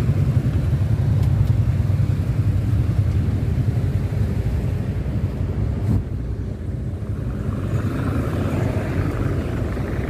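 Road traffic at a junction: motorcycles and cars running and pulling away, a steady low rumble that is loudest in the first half, with another vehicle drawing closer near the end.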